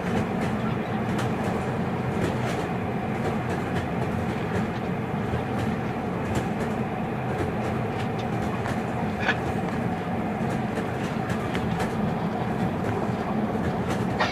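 Steady rumble of a moving train heard from inside a passenger carriage, with faint scattered clicks and rattles and a brief high squeak about nine seconds in.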